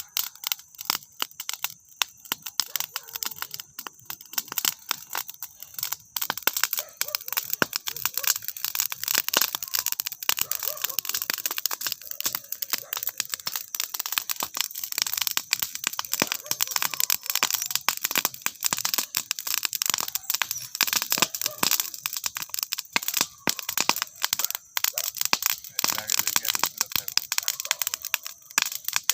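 Dry grass burning, with a dense, continuous crackle of sharp snaps and pops.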